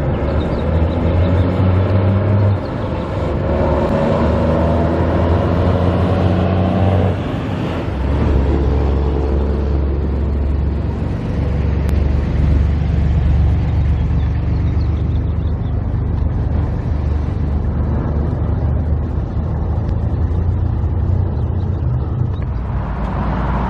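A motor vehicle's engine running steadily, with a rise in pitch from about three to seven seconds in as it speeds up.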